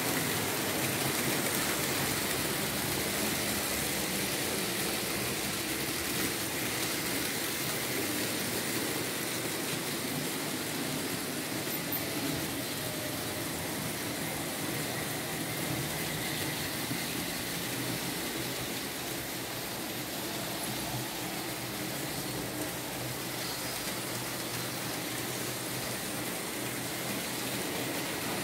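Märklin H0 model trains running on metal track: a steady rolling noise of small wheels on the rails mixed with the hum of their electric motors.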